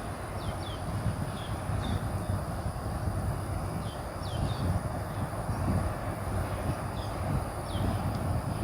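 Steady rumble of busy road traffic, with a bird repeating short, quickly falling chirps about every second.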